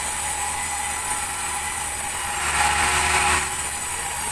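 Sawmill saw and its engine running steadily on a large meranti log, with a low hum under a hissing saw noise that grows louder for about a second past the middle.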